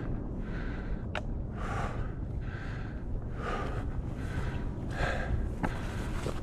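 A hiker breathing hard from the climb, with quick, noisy breaths in and out about every half to three-quarters of a second. A single sharp click comes about a second in.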